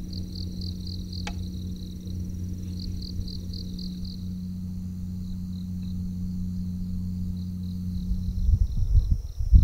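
Crickets chirping in short rhythmic pulses, about three a second, over a steady high insect trill and a low steady hum. Near the end, low rumbling noise swells and becomes the loudest sound.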